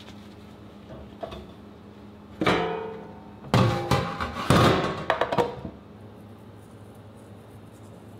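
Stainless steel tray set down in a stainless steel sink: one sharp clank about two and a half seconds in, then several more clangs and rattles over the next two seconds, each ringing briefly.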